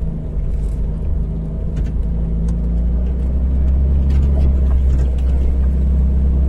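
Toyota Lite Ace van's engine running steadily as it drives a rough dirt track: a low hum that grows a little louder about two seconds in, with scattered light ticks.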